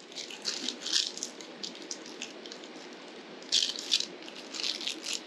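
Small clear plastic parts bag crinkling and crackling in the hands as it is handled and opened, in two spells: around the first second and again near the end.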